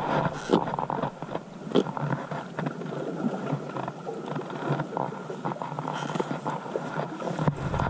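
Sea water washing against a rocky shoreline, with scattered clicks and scrapes of shoes and gear moving on the rock.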